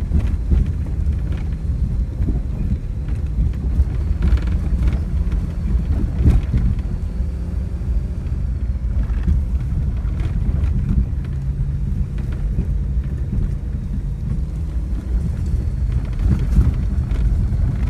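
Vehicle cabin noise while driving a dirt road: a steady low rumble of engine and tyres on the rough surface, with a few short knocks and rattles as the vehicle goes over bumps.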